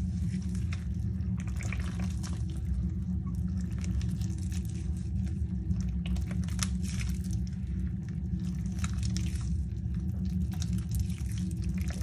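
Hands squeezing and kneading wet pink cornstarch paste with crumbled gym chalk, giving continuous wet squelches and fine crackling ticks over a steady low hum.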